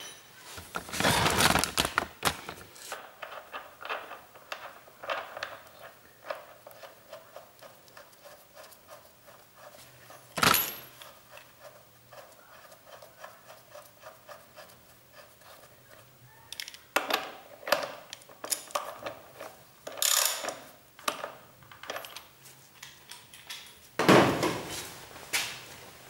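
Metal parts and tools clinking, scraping and rattling as the front axle and its bolt are fitted into a motorcycle's front fork. There is one sharp metallic knock about ten seconds in, and bursts of rattling near the start and again in the last ten seconds.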